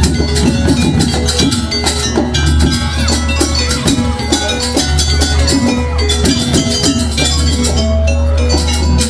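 Jaranan gamelan music: quick, dense percussion strokes over ringing bronze gong and metallophone tones, with a steady low drone.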